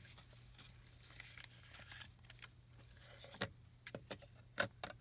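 Faint rustling of paper with a few light clicks and taps in the second half as stamps and papers are handled on a craft table, over a low steady hum.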